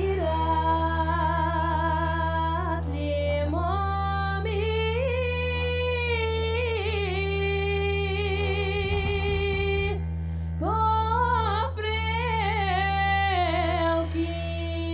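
A woman singing a Bulgarian folk song solo in long, ornamented held notes over a steady low drone, pausing briefly between phrases about ten seconds in.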